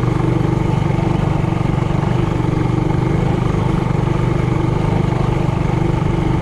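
Trailmaster Hurricane 200X mini bike's four-stroke engine running at a steady speed, with no revving up or down.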